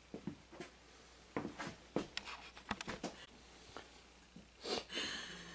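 Quiet, stifled laughter: short breathy exhales with small clicks and rustles, and a longer breathy puff near the end.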